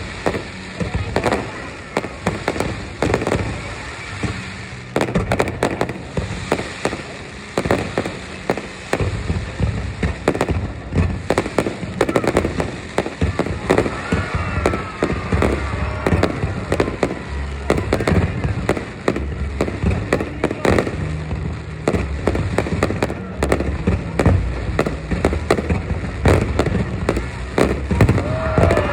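Fireworks display: a dense, continuous run of sharp bangs and crackles with low booms underneath.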